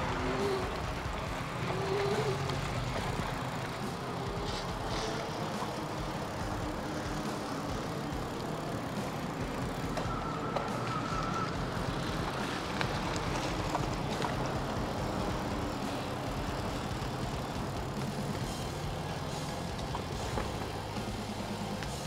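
Steady rolling noise of a bicycle ride picked up by an action camera: tyres on the road and wind rumbling on the microphone. A brief faint whistle sounds about halfway through.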